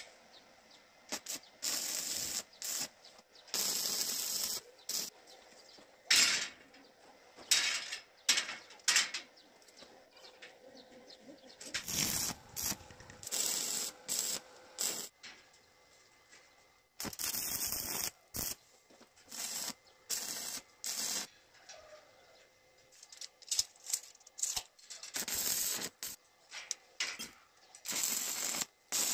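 Electric arc welding on steel bars: a dozen or more short bursts of crackling hiss, each lasting well under a second to about a second, separated by quiet gaps, as the joints are tack-welded one after another.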